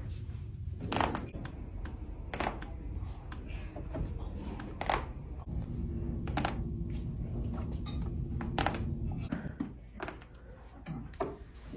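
Spinal joints cracking during manual back adjustments: a series of sharp, separate pops about one to two seconds apart.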